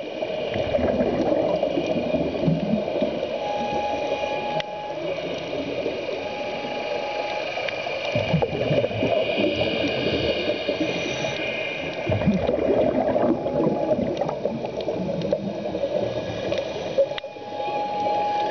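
Underwater sound of gurgling air bubbles and churning water, typical of a scuba diver's exhaled bubbles heard through an underwater camera. A faint steady whine comes and goes a few times.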